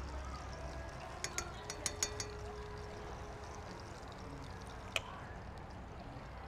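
A metal spoon clinking against a stainless steel mixing bowl and pan while mixture is scooped out: a quick run of about six clinks a little over a second in, and one more near the end, over a steady low hum.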